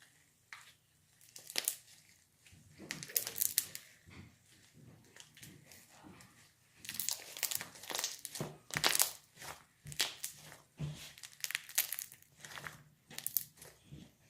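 Slime being worked by hand with jelly cubes mixed into it, giving irregular crinkly crackles and squishes that come thicker in the second half.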